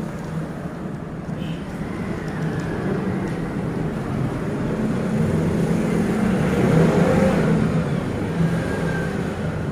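Road traffic: a motor vehicle's engine rumbling, growing louder to a peak about two-thirds of the way through and then easing off as it passes.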